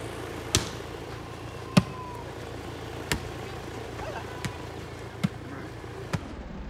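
A volleyball being hit back and forth in a rally: six sharp slaps of hands and forearms on the ball, about a second apart, the second the loudest.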